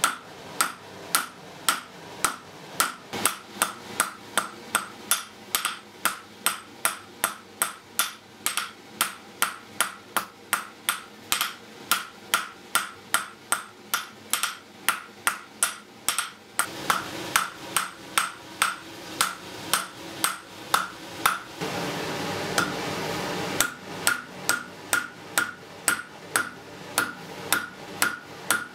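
Blacksmith's hammer striking a red-hot iron bar on an anvil, about two blows a second, each with a bright ringing ping from the anvil. Past the middle a steady rushing noise comes in, and the blows pause for a couple of seconds before resuming.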